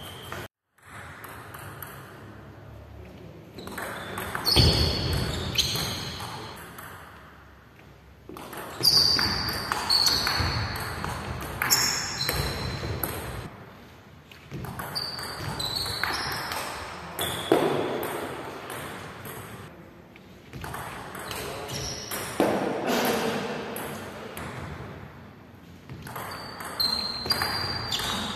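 A table tennis ball clicking back and forth between paddles and table in several short rallies, each hit a sharp tick with a bright ping, with pauses between the points.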